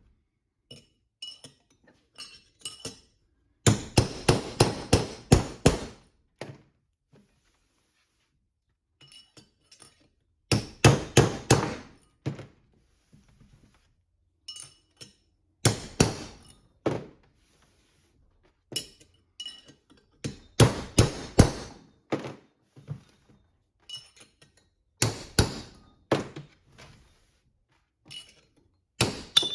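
Hammer blows on a punch, metal on metal, knocking a bearing race out of a Toyota 8-inch differential: five bursts of rapid ringing strikes, about four or five blows each and roughly five seconds apart, with lighter taps between.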